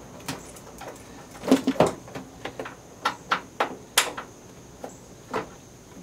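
Irregular clicks and knocks from hands and tools working on a truck's headlamp assembly and its mounting bolts, with a quick cluster of knocks about a second and a half in and a sharp one near four seconds.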